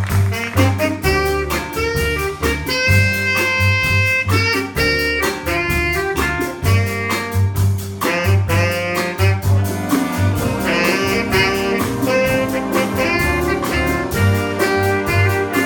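A school jazz ensemble playing: saxophones and brass carry the melody over a steady drum beat and bass line.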